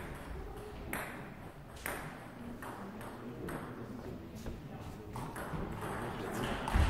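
Table tennis ball clicking in a series of sharp ticks, about one a second at first as it is bounced before the serve, then quicker as it is struck back and forth in a rally. A heavier thud comes near the end.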